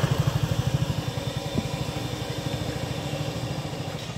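An engine running steadily with a low, rapid throb.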